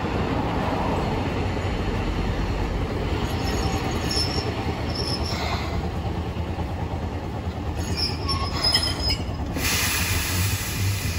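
Hiroden streetcar no. 713 pulling in and coming to a stop, with steady low running noise and its steel wheels squealing briefly on the rails a few times. A high hiss comes in near the end.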